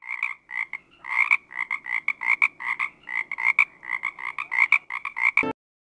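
Frogs croaking in a quick run of short pulses, about five a second, cutting off abruptly near the end.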